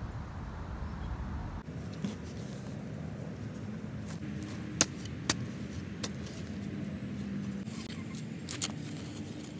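The metal blade of a long-handled garden tool chopping and scraping into grassy soil, with about five sharp clicks and knocks spread over several seconds, the loudest pair near the middle, over a steady low hum.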